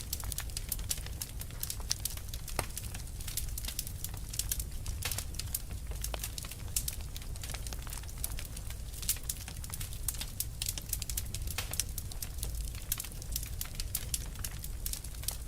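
Fire crackling: many small sharp pops and snaps at an irregular rate, over a steady low rumble of burning.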